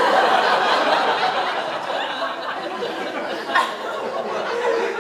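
Audience laughing in response to a punchline, loudest at the start and slowly dying down, with one brief sharp sound about three and a half seconds in.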